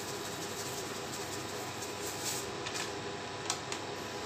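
Steady low hiss at the stove as a wok of coconut-milk vegetable stew heats toward a simmer, with a few faint clicks about two to three and a half seconds in.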